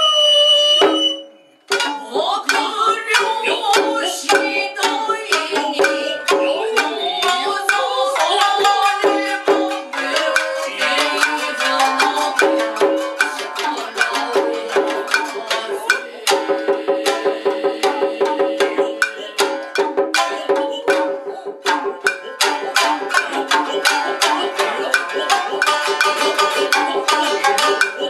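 Nagauta ensemble playing: plucked shamisen over sharp tsuzumi hand-drum strokes and taiko stick-drum beats, dense and rhythmic. It comes in after a short break about a second and a half in.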